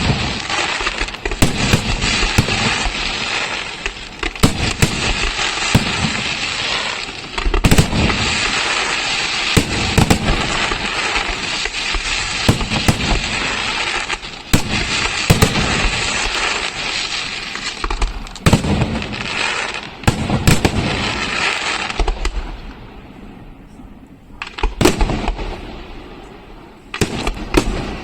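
Aerial fireworks display: dense continuous crackling with many sharp shell bursts and bangs, thinning out about three-quarters of the way through to scattered loud bangs with short lulls between.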